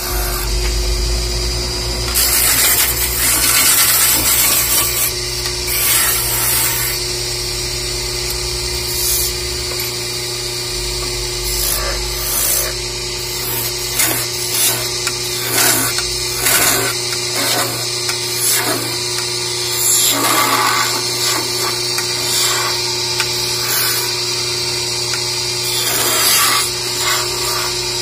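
Electric wood lathe running with a steady motor hum while a turning tool cuts into the spinning wood in repeated rough, scraping bursts.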